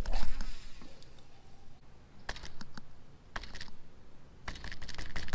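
Fishing rod and reel being worked: irregular clusters of light clicks and taps, with a brief rustling burst at the start.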